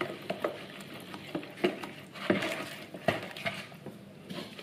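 Metal spoon stirring a thin, liquid yeast-dough mixture in a plastic bowl, with irregular light clicks and scrapes of the spoon against the bowl as melted butter is mixed in.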